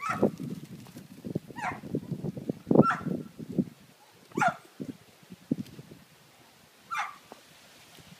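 Papillon yapping: about five short, high-pitched barks spaced a second or more apart, each dropping in pitch, with low scuffling thumps in the first few seconds.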